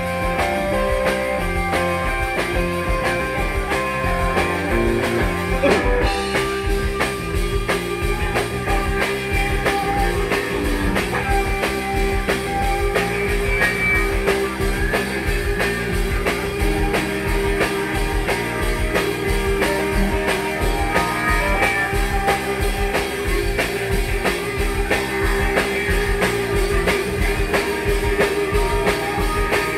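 Live rock band playing: electric guitars over a drum kit with a steady beat.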